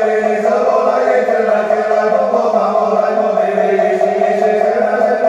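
Mahayana Buddhist prayer chanting: a continuous recitation held on steady, drawn-out pitches without a break.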